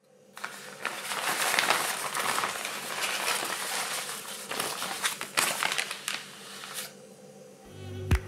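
Sheet of white paper wrapping being unfolded and crumpled by hand: a dense crinkling with sharp crackles. It dies away shortly before the end, as background music with a beat comes in.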